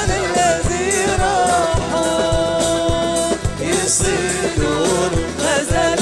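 Live traditional Jordanian folk song: a singer's melody over hand drums with a steady percussion beat, and one long held note about two seconds in.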